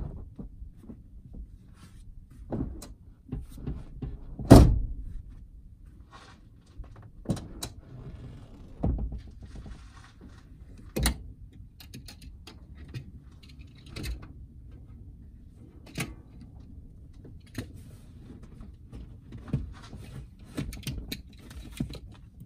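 Irregular knocks, clunks and rustling from hand work under a pickup cab's rear seat. One loud thump comes about four and a half seconds in and a sharp knock about eleven seconds in.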